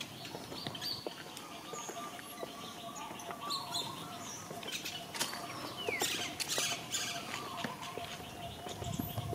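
Small birds chirping in short, scattered calls over outdoor ambience, with a faint steady tone underneath.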